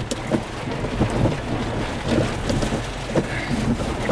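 Rain hitting a storm-chase vehicle, a steady wash of noise with many small scattered ticks over a constant low rumble.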